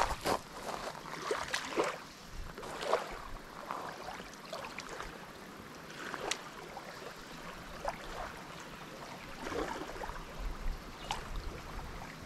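Small waves lapping at a gravel lakeshore, with scattered light ticks and scuffs.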